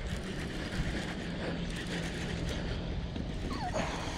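Wind rumbling on the microphone, with a faint steady low hum underneath.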